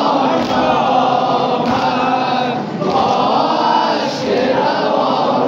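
A group of men chanting a nauha, a Shia lamentation hymn, together in unison.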